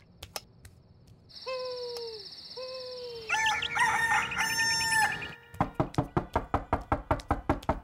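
Cartoon rooster crowing as a morning wake-up sound effect: two short falling calls, then a longer held crow. About five and a half seconds in, a rapid run of knocks on a door begins, several a second.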